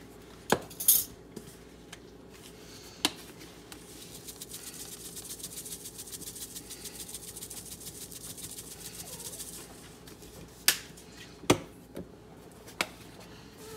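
Seasoning shaken from a spice bottle over a bowl of crushed cracker crumbs: a fast, even rattle lasting about five seconds in the middle, with a few sharp clicks before and after it.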